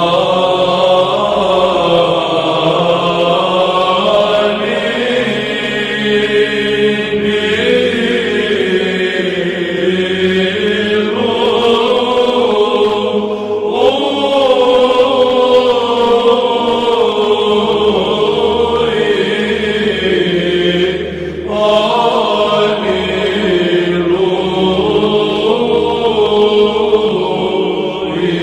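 Byzantine (Greek Orthodox) chant: a sung melody in long, slowly gliding phrases over a held low drone note, with short breaks between phrases.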